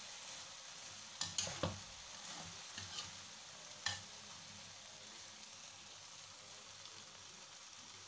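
Soy-sauce-coated yellow noodles sizzling in a wok, with a spatula scraping and clicking against the wok a few times during the first four seconds, then steady sizzling.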